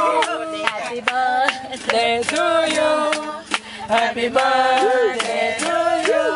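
A group of adults and children singing a song together, with hand claps in time.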